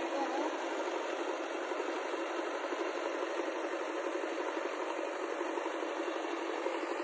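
An engine running steadily with a fast, even mechanical rattle.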